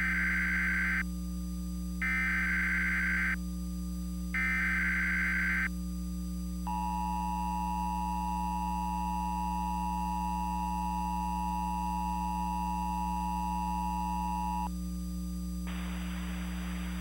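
Emergency Alert System tones: three screeching bursts of SAME header data, about a second apart, then the two-tone attention signal held steady for about eight seconds, all over a steady low hum. A hiss of noise comes in near the end.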